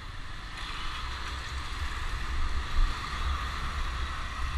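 Motorbike riding along a street, heard from a camera mounted on it: a steady low rumble of engine and road with a hiss of noise over it.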